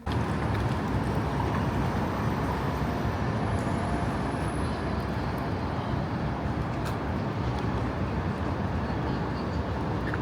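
Steady city traffic noise: a continuous low rumble of passing vehicles on a street.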